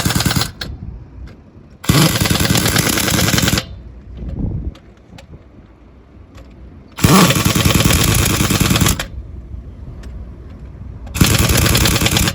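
Pneumatic impact wrench rattling in bursts of about two seconds, each spinning up with a brief rising whine, three times plus the tail of a fourth at the start, typical of truck wheel nuts being run on or off during a tyre puncture repair. A lower machine rumble runs between the bursts.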